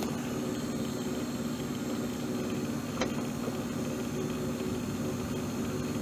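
Steady mechanical hum of a refrigeration condensing unit running, with a single click about three seconds in.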